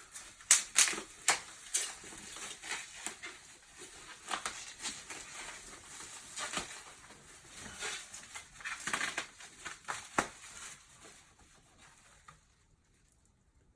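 Bubble wrap and plastic packaging crinkling and crackling as it is pulled off a packed item, in quick irregular bursts of sharp crackles. It stops about twelve seconds in.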